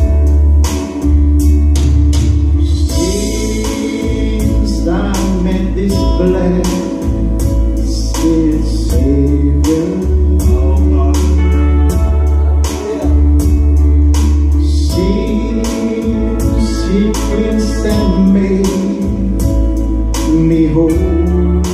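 Live music: a man singing into a handheld microphone over instrumental accompaniment with a steady beat and a deep, sustained bass. The voice comes in about three seconds in.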